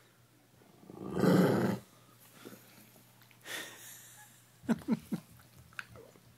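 A Doberman and a pet ferret scuffling over a bone: a loud breathy huff about a second in, a softer one midway, then three short sharp cries in quick succession near the end.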